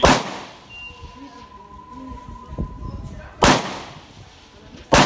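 Three carbine shots fired during an IPSC stage: one right at the start, then two about one and a half seconds apart near the end, each trailing off in a short echo.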